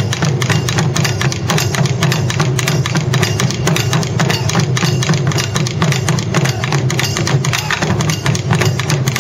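Several Japanese taiko barrel drums beaten together with wooden sticks in a fast, dense, driving rhythm that holds steady throughout.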